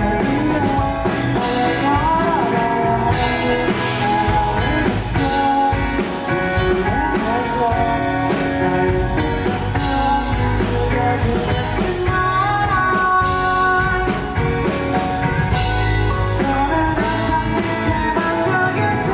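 Live pop band playing an instrumental break, with the melody carried over a full band of guitar, bass and drums.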